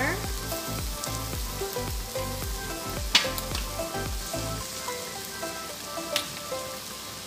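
Shrimp, tomato and onion sizzling in a wok as turmeric powder is sprinkled in. Background music with a steady beat plays over it and stops about two-thirds of the way through. Two sharp clicks come about three and six seconds in.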